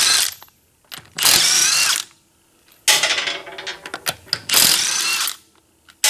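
Impact wrench on a wheel's lug nuts, running in three bursts: a short one at the start, one about a second in, and a longer one lasting over two seconds, its pitch rising and falling. The nuts sit on cross-threaded, roughed-up wheel studs.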